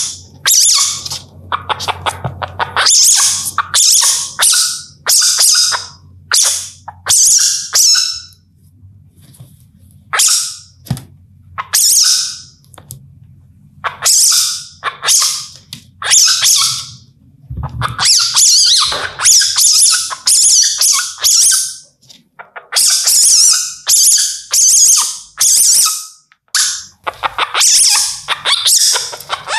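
Indian palm civet calling in a long series of short, high-pitched screeches, each well under a second, coming in quick runs separated by a few brief pauses.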